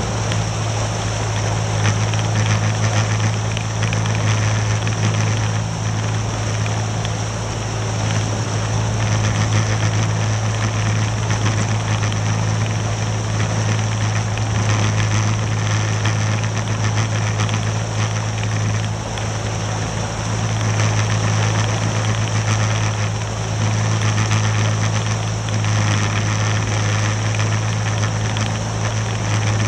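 Outboard motor of a rigid inflatable boat running steadily at low cruising speed, a constant low drone, over a haze of water and wind noise.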